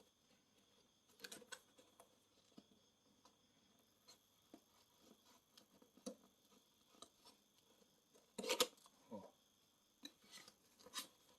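Faint handling noises from a box of camera accessories being unpacked: scattered soft clicks and rustles, with one louder rustling knock about eight and a half seconds in and a few clicks near the end.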